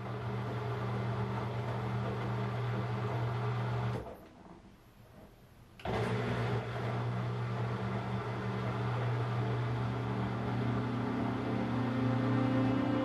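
Front-loading washing machine running, a steady mechanical hum as the drum turns the laundry, cutting out for about two seconds around four seconds in and then resuming. Faint musical tones start to come in near the end.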